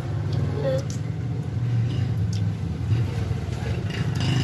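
A steady low hum of background machinery or traffic, with a few faint short clicks.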